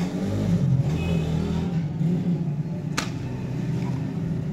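Steady low mechanical rumble, like running engines. About three seconds in comes a single sharp click as the accessories are handled in the box.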